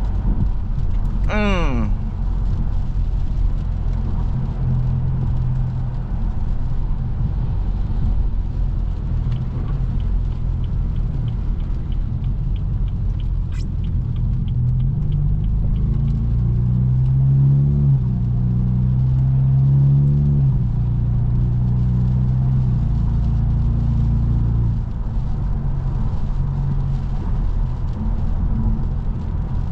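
Straight-piped BMW F30 328i's turbocharged four-cylinder engine droning low and steady while cruising. A little past halfway it revs up twice with a short drop between, like a gear change, then settles back to the drone. A light regular ticking runs for several seconds before the revs rise.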